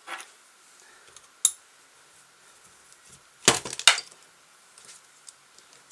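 Small metal screws clinking as they are set down on a hard surface: a light clink at the start, another about a second and a half in, then a louder quick run of clinks about three and a half seconds in.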